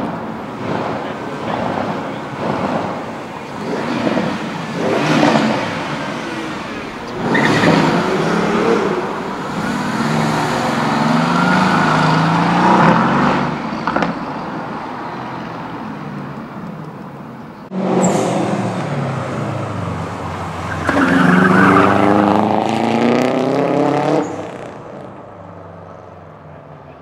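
Modified cars driving off one after another, their engines accelerating hard past with rising pitch; the loudest pull comes about three quarters of the way in, then the sound dies away.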